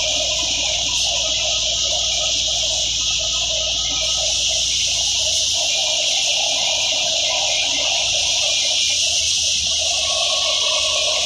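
Tractor-driven wheat thresher running steadily while wheat straw is fed into it: a constant loud whirring rush with a high hiss over a faint low hum.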